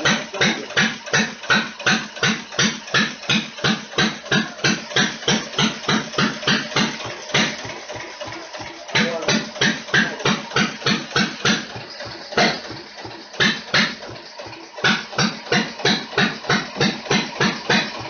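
McCormick Deering (IH) single-cylinder hit-and-miss engine running: loud, evenly spaced firing bangs at about three a second. Twice it stops firing for a second or two and coasts on its flywheels before picking up again, the governor's hit-and-miss cycle.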